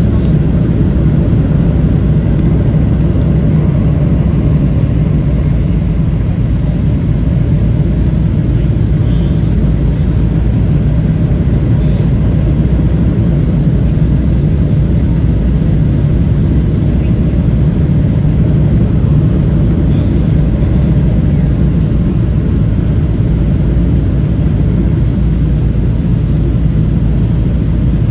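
Steady low rumble of a Boeing 737-700's CFM56-7B turbofans and rushing airflow, heard inside the cabin from a seat over the wing, with flaps extended on final approach.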